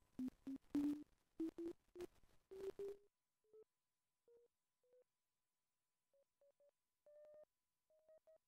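Motion-controlled software synthesizer sounding short pure-tone blips whose pitch steps gradually upward: quick, crackly blips for the first three seconds, then sparser, fainter ones. The pitch and loudness follow the webcam-tracked body movement.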